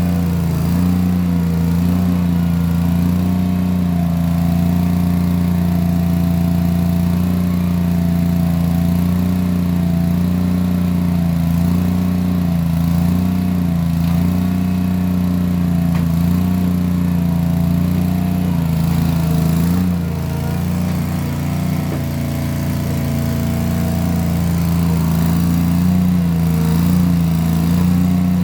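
Case 1816 skid steer's engine running steadily through small round mufflers while working, easing off briefly about twenty seconds in before picking back up.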